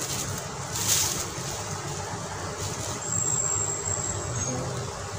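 Plastic wrapping crinkling and rustling as it is pulled off a new claw hammer, with the sharpest crackle about a second in, over a steady background rumble.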